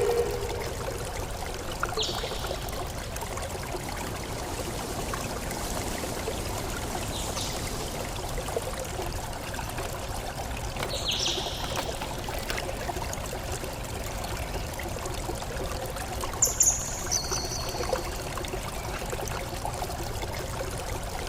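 Water running or trickling steadily, with a few short downward-sliding bird calls, a pair of them near the end.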